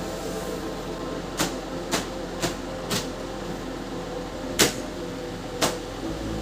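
A series of sharp clicks or knocks over a steady low hum: four about half a second apart, then two more spaced further apart, the second-to-last the loudest.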